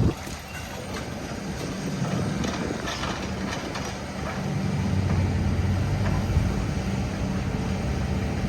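A vehicle's engine running with a steady low hum that grows louder about halfway through, over wind noise on the microphone.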